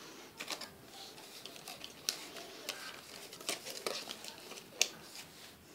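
Faint rustling, crinkling and small clicks of a cardboard-and-plastic blister pack being pulled open by hand.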